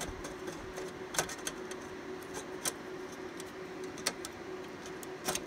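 A few sharp clicks and taps as a rear SAS backplane board is worked into its slot in a Dell PowerEdge R720XD server chassis, over a steady background hum.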